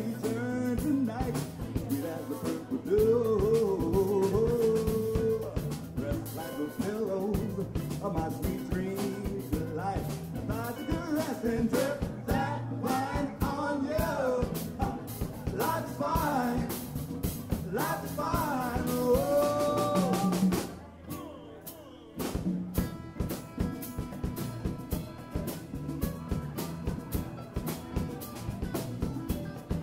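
Live band playing: a male singer with acoustic and electric guitars, drum kit and congas. The singing stops about two-thirds of the way through, and after a brief drop the band plays on with drums and guitar alone.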